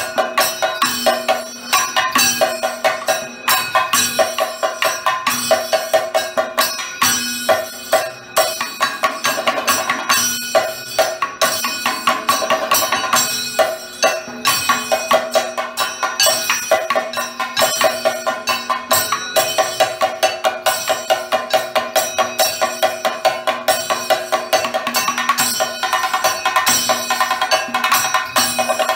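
Kathakali percussion accompaniment: chenda and maddalam drums played in a dense, steady fast rhythm, with ringing strokes of a hand-held gong.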